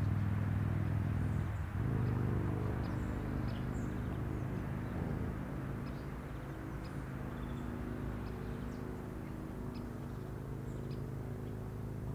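Outdoor ambience dominated by a steady low mechanical hum, like an engine running, whose pitch shifts slightly a couple of seconds in. A few faint short high ticks sit above it.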